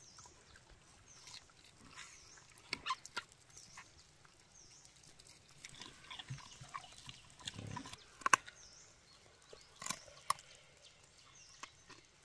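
Close-up eating of crispy grilled chicken: scattered crackles, smacks and clicks as the skin and meat are torn and chewed, with a few sharper smacks.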